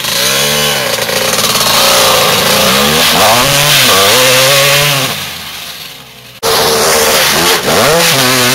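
1991 Honda CR250 dirt bike's two-stroke single-cylinder engine revving hard under riding load, its pitch repeatedly rising and dropping with the throttle. It fades as the bike moves off, then comes back loud suddenly about six seconds in.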